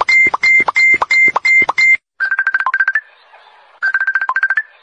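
Electronic beeping: a fast, even run of short high beeps, about four to five a second, each opened by a quick upward chirp, stopping about two seconds in. Two bursts of faster electronic chirps follow, with a faint hiss between them.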